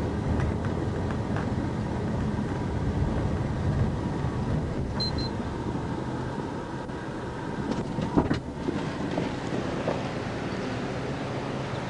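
Police patrol car running, a steady rumble of engine and road noise with a low hum. A short high double beep comes about five seconds in, and a single knock comes about eight seconds in.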